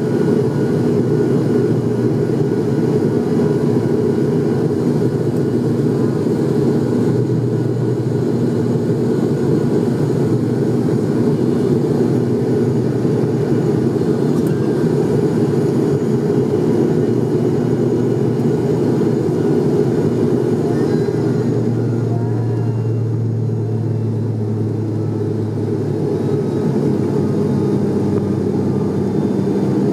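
Cabin noise of an ATR 72-600 turboprop climbing out after takeoff: the steady, loud drone of its Pratt & Whitney PW127M engines and propellers, with a low hum made of several steady tones that shift slightly about two-thirds of the way through.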